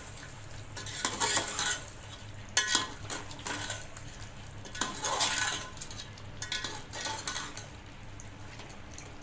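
A steel spoon stirring and scraping chicken and fried potato chunks in a metal cooking pot, in about four short bouts, with a faint sizzle of the simmering curry underneath.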